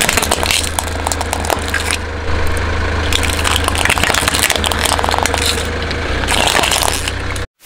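Car engine idling with a steady low rumble while something is crushed under a tyre, giving repeated bursts of crackling and crunching. The sound cuts off abruptly near the end.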